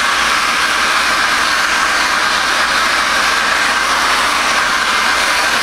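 Handheld electric hair dryer running steadily, blowing warm air over a freshly coated sheet of print paper to dry the sensitizer.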